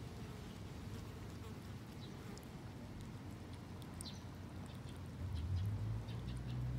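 A cat eating wet food from a small bowl: quick, irregular wet clicks and smacks of chewing and licking. Underneath runs a low hum that grows louder about five seconds in.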